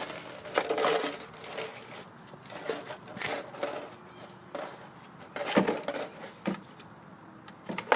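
Barbet puppies moving about and playing in a pen: scattered knocks, rustles and scuffles, with a sharper knock about five and a half seconds in.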